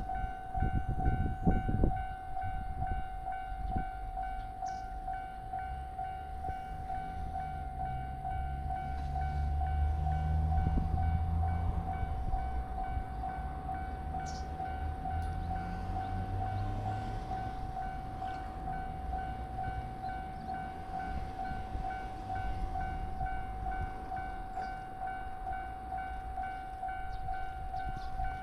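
Japanese level-crossing warning bell ringing in an even, repeating electronic ding. An electric train passes through the middle, its rumble building and then fading.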